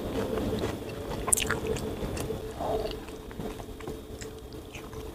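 Close-up eating sounds: chewing with wet mouth clicks, and fingers squeezing and scooping rice with sambal off a banana leaf, with one sharp click about a second and a half in.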